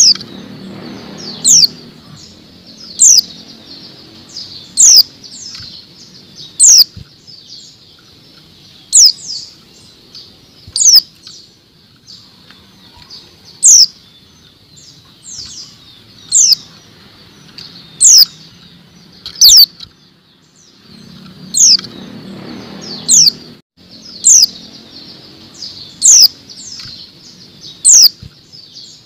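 Female white-eye (pleci) calling: short, sharp, high chirps that slide downward, repeated roughly every one to two seconds. Bursts of wing fluttering as the bird moves about the cage near the start and about three quarters through.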